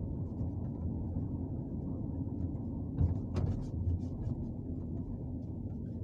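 Steady in-cabin rumble of a Ford Connect's 1.8 TDCi diesel engine and tyres while the van drives slowly. A single thump with a sharp knock comes about three seconds in.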